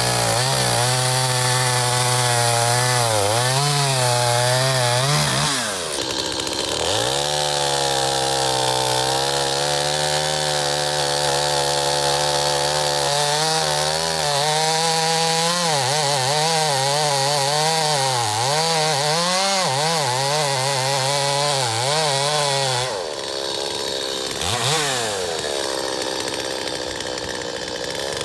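Stihl MS 250 two-stroke chainsaw cutting into an elm trunk, held at high revs with the pitch wavering as it bogs and recovers in the cut. The revs drop off sharply about six seconds in and again near the end, then climb back up.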